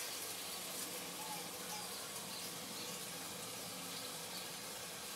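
Steady, quiet sizzling of cube steaks frying under a stainless steel basting dome on a flat top griddle, with two faint bird chirps about a second and a half in.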